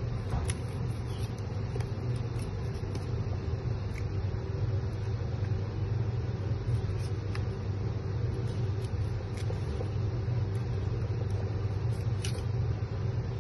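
A steady low rumble throughout, with faint scattered clicks and scrapes of a knife working along a large tuna carcass.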